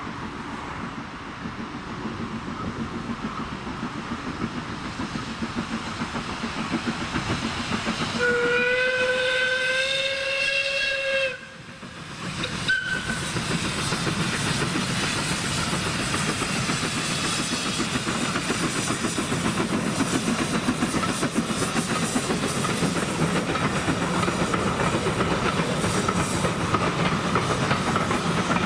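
Steam locomotive No.3 'Twizell', an 1891 Robert Stephenson tank engine, approaching with its exhaust and train noise growing louder, then sounding its steam whistle: one long blast of about three seconds, rising slightly in pitch, and a short toot a second or so later. After that the engine and its coaches run past with a steady exhaust beat, steam hiss and wheel clatter.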